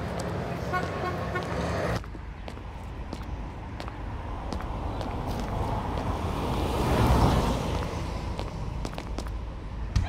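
City street ambience with road traffic: a steady low rumble that changes abruptly about two seconds in, then a vehicle passing that swells about seven seconds in and fades.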